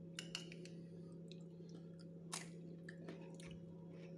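Quiet mouth sounds of a person chewing a mouthful of homemade frozen yogurt ice cream, with a few short soft clicks, the sharpest about two seconds in, over a steady low hum.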